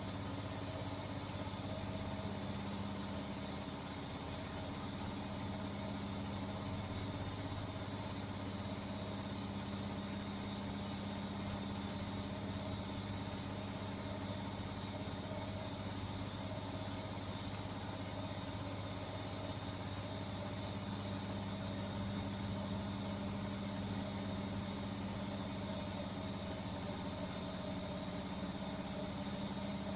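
Beko washing machine running a 1200 rpm spin-and-drain cycle: a steady mechanical hum whose low tone grows stronger about two-thirds of the way in.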